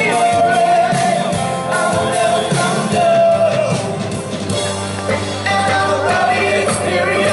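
Live pop-rock band and lead vocalist performing through a PA, the singer holding long notes over the band.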